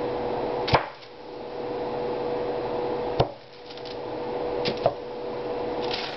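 Sharp knocks of a kitchen knife meeting the cutting surface as a block of melt-and-pour soap is sliced: one about a second in, one past the middle and a quick double knock soon after. A steady hum runs underneath.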